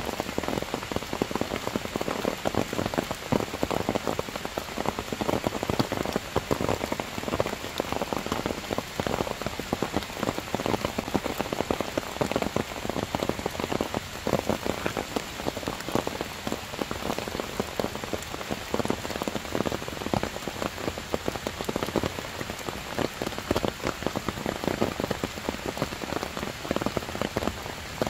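Heavy rain falling steadily: a dense patter of drops with many sharper individual drop hits scattered through it.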